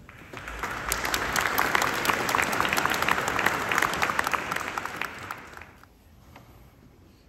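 Audience applauding, building up in the first second and dying away after about five seconds.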